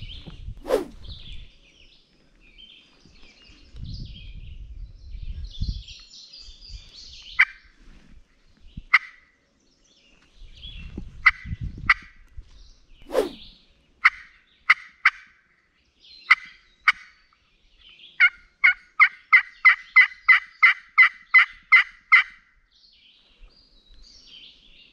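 Pinhoti turkey pot call scratched with a striker, imitating a hen turkey to draw a gobbler. Scattered single clucks and short yelps come first, then a run of about fourteen hen yelps at roughly three a second. Low rustling of leaves and handling noise comes between the calls.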